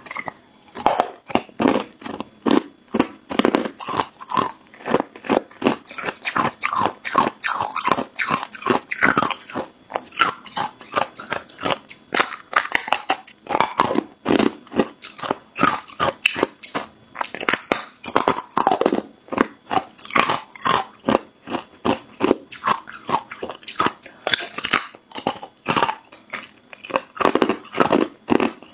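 A person biting and chewing hard ice: a fast, uneven run of loud crunches and cracks, several a second.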